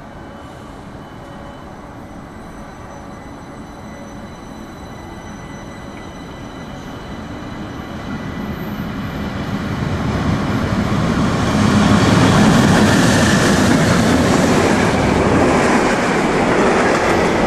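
Heavy freight train climbing the grade behind a pair of ÖBB class 1144 electric locomotives, approaching and passing close by. Its rumble and wheel noise grow steadily louder over about ten seconds, then stay loud as the wagons roll past.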